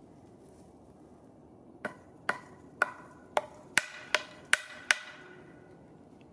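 Eight hammer blows in quick succession, about two a second, each with a short metallic ring; the first blow is the softest.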